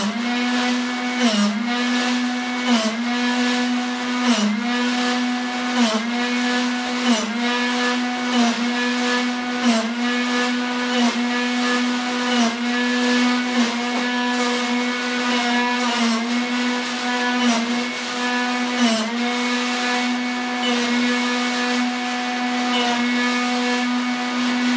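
Drill Doctor sharpener's electric motor running, its pitch dipping briefly about every one and a half seconds with a rasp as the drill bit in the chuck is turned against the grinding wheel and ground. The bit is being sharpened to a 118-degree point.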